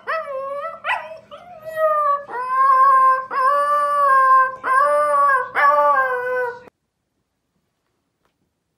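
Husky puppy howling: two short yelps, then four long howls of about a second each. The sound cuts off abruptly near the end.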